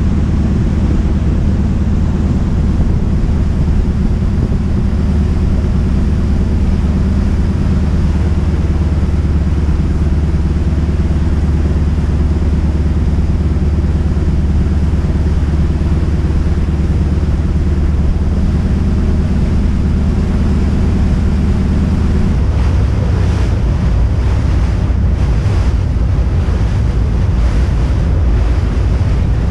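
A passenger ferry's engine running steadily, a low hum under the deck. About three-quarters of the way through it gives way to wind gusting on the microphone and water rushing past the hull.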